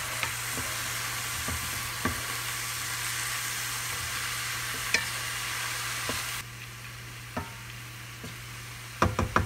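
Chopped purple cabbage sizzling in hot coconut oil in a sauté pan while being stirred with a wooden spatula, with a steady hiss and occasional scrapes. The sizzle drops quieter about six seconds in, and near the end comes a quick run of sharp taps. A steady low hum sits underneath.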